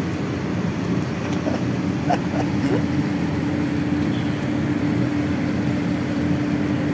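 Steady outdoor background hum with one constant low drone tone and a rushing noise underneath, like a nearby vehicle engine running. A few faint voice fragments come in about two seconds in.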